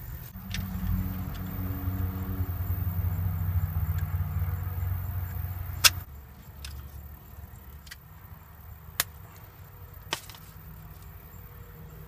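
A motor vehicle's engine running with a steady low hum, loudest for the first six seconds and ending with a sharp click. After that a fainter low rumble continues, with a few light clicks.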